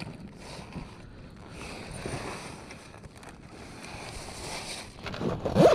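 Water washing against a kayak hull, with wind on the microphone and light handling noises, then a short, louder sound near the end.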